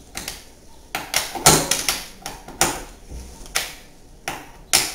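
Hand wrench tightening a bolt on the fountain's base: a series of sharp metallic clicks at uneven intervals, about one a second or a little faster, as the wrench is worked round.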